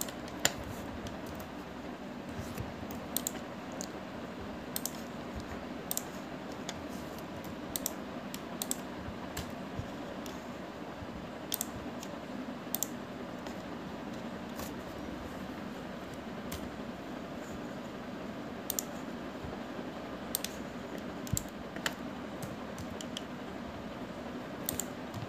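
Scattered, irregular clicks of a computer mouse and keyboard being used, over steady low background noise.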